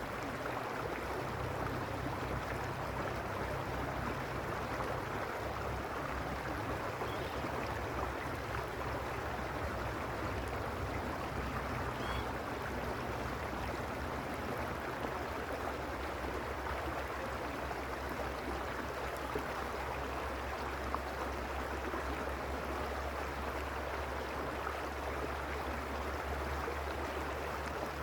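Mountain stream, the Arroyo Uspallata, flowing with a steady rush of water and a low rumble underneath.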